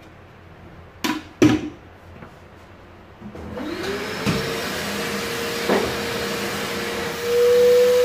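Two sharp clacks, then a Rowenta Compact Power Cyclonic bagless vacuum cleaner's motor starts, its pitch rising as it spins up and then running steadily. Near the end it gets clearly louder, with a steady tone riding on the motor noise.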